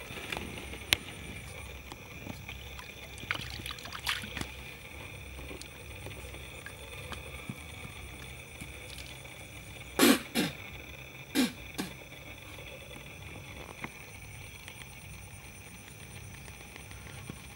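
Steady high-pitched drone of forest insects, with a few faint clicks and two short loud sounds about ten and eleven and a half seconds in.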